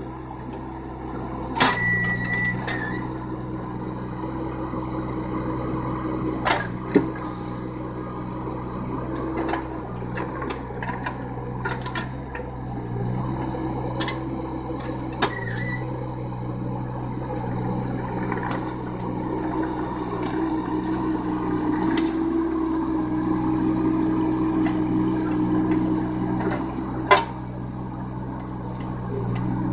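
John Deere 17D compact excavator's diesel engine running steadily, its note swelling and easing as the hydraulics work the arm. Several sharp knocks from the bucket and thumb setting logs in place, the loudest about two seconds in and near the end.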